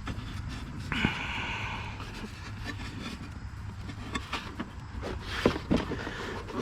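Air intake box being pushed and worked back into place on a BMW B58 engine: scattered knocks and clicks, with a scraping rub about a second in, over a low steady hum.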